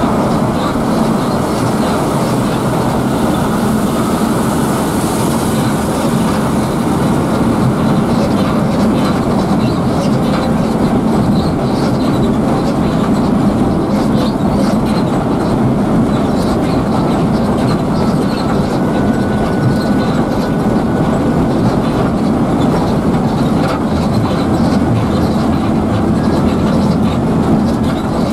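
Steady engine drone and road noise heard inside the cabin of an intercity coach cruising on a highway.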